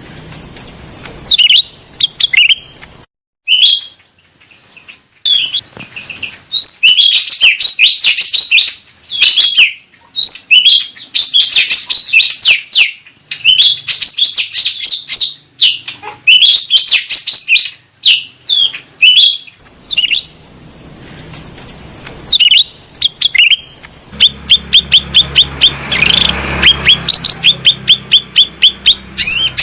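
Cucak rante birdsong: loud bursts of rapid, high chirping twitter broken by short pauses, turning into a fast, even run of repeated notes near the end.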